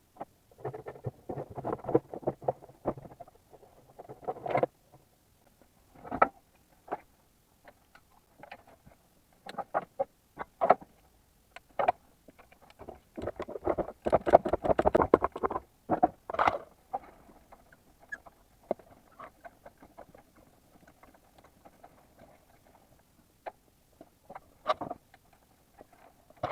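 Irregular clicks, knocks and rattling of hand tools and parts being handled while work is done under the bonnet, busiest about thirteen to sixteen seconds in, with quieter pauses between.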